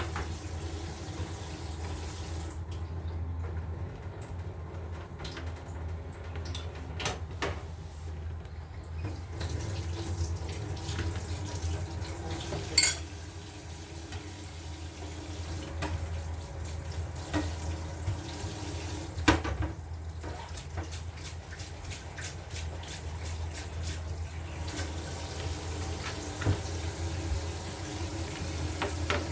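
Water running from a kitchen tap into the sink, on and off, over a steady low hum, with two sharp clinks of dishes or utensils.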